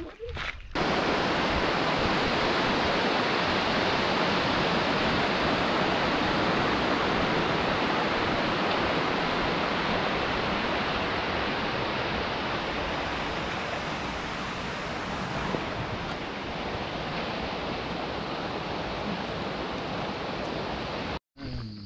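Rushing water: a steady, loud roar of falling or cascading water, starting abruptly and cutting off abruptly near the end.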